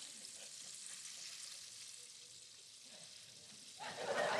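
Faint steady hiss, then studio audience applause swelling up about four seconds in.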